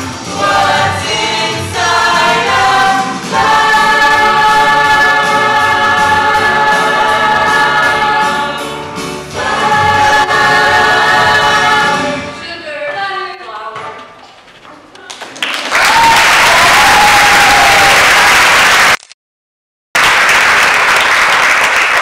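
A mixed group of young voices sings the closing chords of a musical-theatre number in close harmony, with long held chords that fade out about two-thirds of the way through. Audience applause follows. It cuts to silence for about a second near the end, then resumes.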